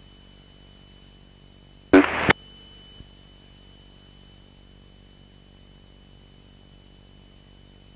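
Steady electrical hum with a thin high-pitched whine on a light aircraft's intercom and radio audio feed, and one short loud burst about two seconds in.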